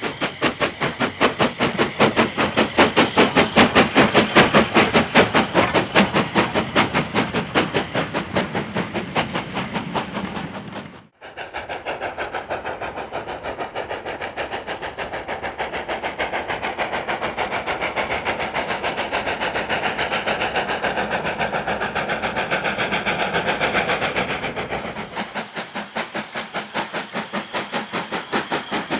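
Southern Railway Q class 0-6-0 steam locomotive 30541 working a goods train, its exhaust beating in a fast, even rhythm. The sound changes abruptly twice, a little over a third of the way in and again near the end.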